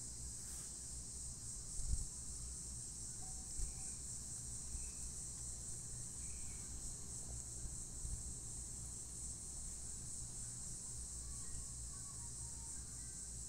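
Steady, high-pitched drone of an insect chorus, over a faint low rumble.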